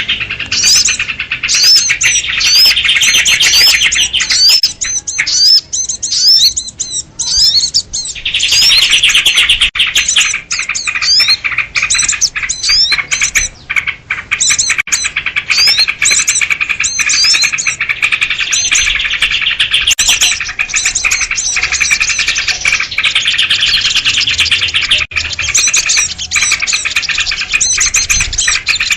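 Bird-lure recording of agitated sooty-headed bulbuls (kutilang) calling together: a dense, continuous chatter of chirps with many quick rising whistled notes, thinning briefly about six seconds in. It is the kind of noisy mobbing chorus used to draw small wild birds in.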